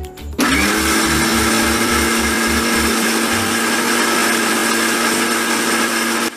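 Electric mixer grinder starting suddenly, its motor spinning up in pitch and then running with a steady whine as it blends egg whites and oil into mayonnaise in the steel jar. It stops abruptly just before the end.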